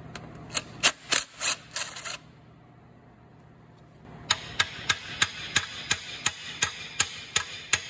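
Hammer blows on steel, knocking out the small lock that holds the reverse sliding gear shaft in an Allis-Chalmers WD tractor transmission case. The quick, even taps come about three a second: a short run of about five, a pause of two seconds, then a longer steady run from about four seconds in.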